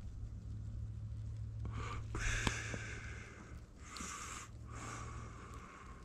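A person breathing out heavily close to the microphone, three or four long breathy rushes of about a second each, in the cold night air. Under the breaths runs a low steady rumble that stops near the end.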